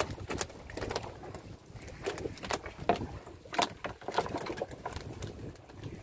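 A string of irregular sharp knocks and clicks, loudest at the start and about three and a half seconds in, over a low steady rumble.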